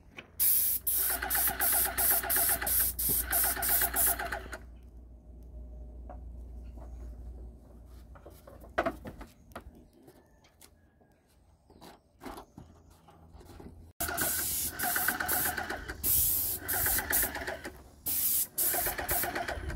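Airless paint sprayer spraying in bursts: a loud hiss of atomised paint from the spray gun with a rapid rattling pulse under it. It stops after about four seconds, leaving a quieter stretch with a few clicks, and the spraying starts again near the end.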